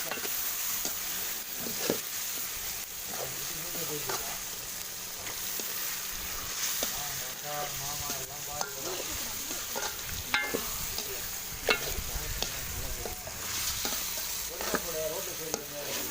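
Food sizzling as it fries in a pan while it is stirred, with a few sharp knocks of the spoon against the pan.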